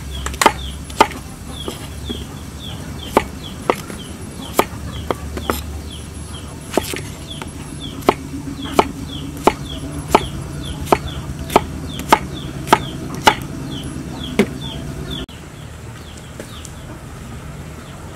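A cleaver chopping cucumber against a wooden cutting board, single sharp strikes about every half second, about twenty in all, stopping about fifteen seconds in. Behind it chickens keep up short, high, falling chirps.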